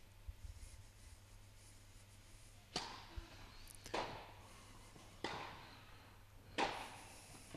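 Tennis ball struck by rackets four times in a rally, sharp hits about one and a quarter seconds apart, each followed by echo in an indoor hall.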